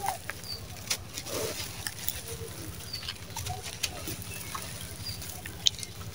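Hands crumbling a dry, gritty charcoal chunk: crunching and crackling with grains pattering down, sharper cracks about a second in and near the end. Faint bird chirps now and then.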